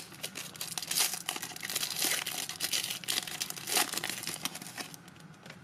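Plastic trading card pack wrapper crinkling and crackling as it is torn open by hand and peeled back from the cards, the crackle dying down about five seconds in.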